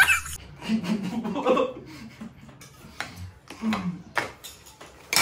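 Laughter cuts off at the very start. Then there are a few faint low murmurs and several sharp clicks as people eat noodles from metal plates.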